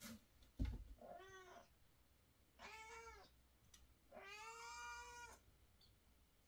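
A cat meowing three times, each a clear pitched meow, the last one the longest, with a single thump just before the first.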